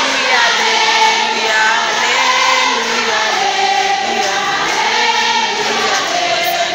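A group of voices singing a praise song together, moving through long held notes.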